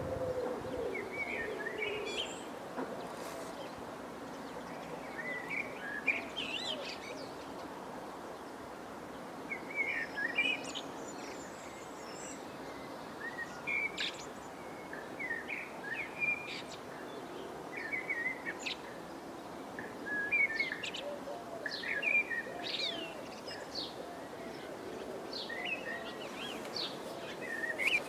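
Small songbirds, sparrows and blue tits, chirping in short clusters every second or two over faint low background noise.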